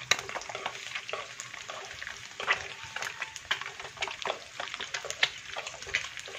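Peeled boiled quail eggs frying in hot oil in a wok, sizzling with frequent sharp pops and crackles as they are turned with chopsticks: the eggs are spitting a lot in the oil.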